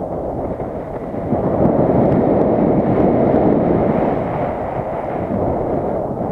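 Loud wind buffeting the microphone, a dense rush of noise that grows stronger about a second and a half in and wavers in gusts.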